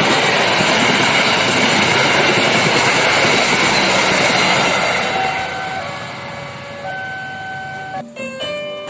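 Passenger train passing close by, a loud steady rush of wheels on rails that fades after about five seconds. Keyboard music with single held notes comes in as the train noise dies away.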